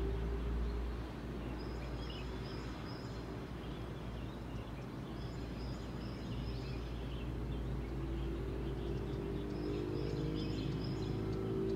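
Outdoor morning ambience: small birds chirping in short high runs, three or four times, over a steady low rumble. A faint low steady hum joins in over the last few seconds.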